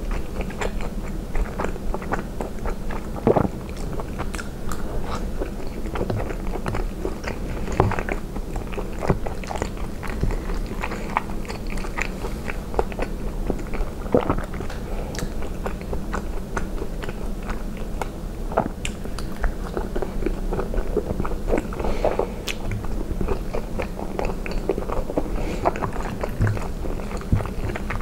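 Close-miked chewing of soft cheese and spinach ravioli in tomato sauce: steady, irregular wet mouth sounds and soft clicks.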